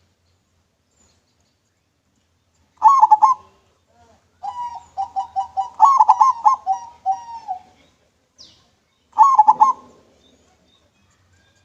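Zebra dove (perkutut) singing its clear cooing song. A short loud phrase comes about three seconds in, then a rapid rattling run of repeated coos lasting about three seconds, and another short phrase near the end.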